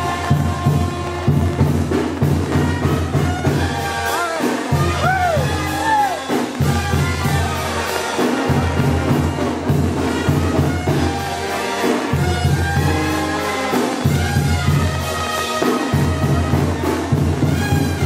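Brass band music with a low brass bass line and drums.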